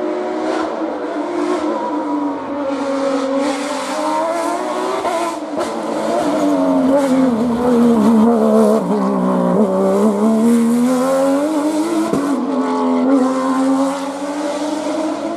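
Rally car engine driven hard on a stage, its revs dropping and climbing again several times through braking and acceleration, with a sharp break about twelve seconds in.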